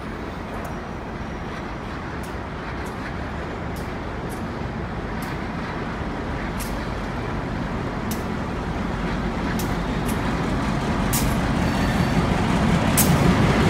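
Diesel locomotive hauling a work train approaching on the rails, its engine and wheel noise growing steadily louder as it nears. Short high clicks come every second or so.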